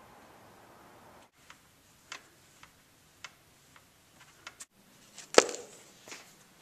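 A string of light, irregular clicks and taps, then one louder knock a little before the end, followed by a smaller one.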